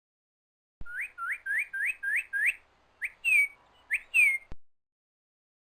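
Bird song: a quick run of six rising whistled notes, then a few louder separate notes, two of them falling, before it cuts off abruptly.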